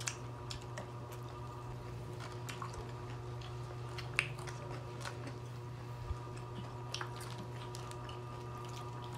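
Close-up eating sounds of two people chewing fried chicken and rice by hand, with a few sharp clicks and taps from handling cardboard food boxes, the loudest about four seconds in, over a steady low hum.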